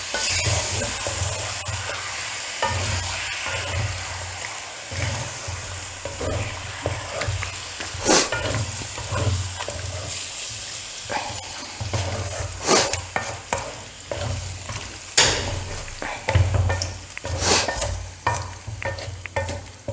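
A spoon stirring chicken curry in a kadai: repeated scraping strokes against the pan over a wet sizzle, with about four sharp clanks of the spoon on the pan in the second half.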